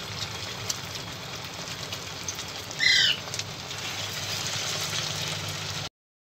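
Potato tikkis shallow-frying in hot oil: a steady sizzling hiss with fine crackles. About three seconds in, a short, high chirp rings out loudly over it. The sound cuts off abruptly near the end.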